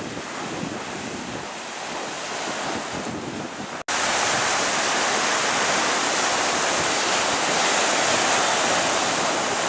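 Ocean surf washing in, mixed with wind buffeting the microphone. About four seconds in the sound drops out for an instant and comes back louder and hissier.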